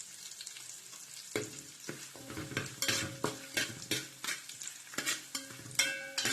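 Onion, bay leaves and whole spices sizzling in hot oil in a pan. From about a second in, a spoon stirs them, scraping and knocking against the pan roughly twice a second.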